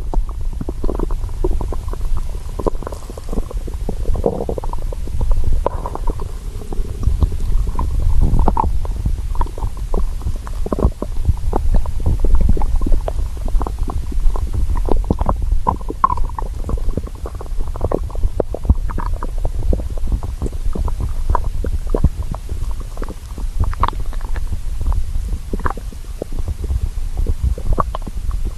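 A hungry stomach growling: a continuous low rumble with many quick pops and squelches all through, and a few short pitched gurgles.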